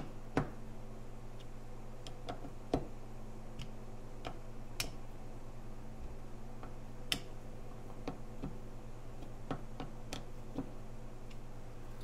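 Hand screwdriver turning screws into the aluminium gear-housing cover of a Makita 9227C polisher: light, irregular clicks and ticks of the tip and screws, a few seconds apart. A steady low hum lies underneath.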